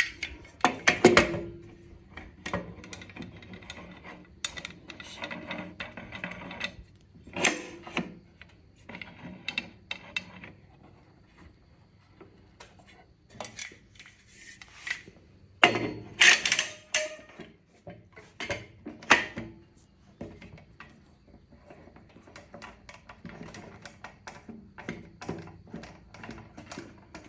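Aluminum clamps being set and tightened across a glued-up wooden tabletop: scattered clicks and knocks of metal clamp parts against the wood, with a few louder knocks.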